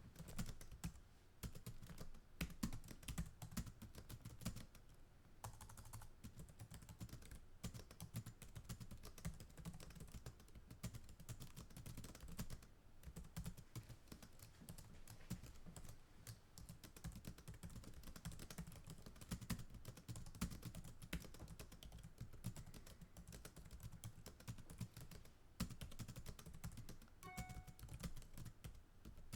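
Computer keyboard typed fast, recorded close up: a dense, irregular run of key clicks and thumps that continues without long pauses.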